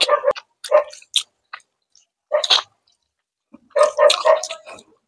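Ripe mango being eaten: wet slurping, sucking and chewing as the flesh is pulled off the skin by mouth, in several short bursts, the longest near the end.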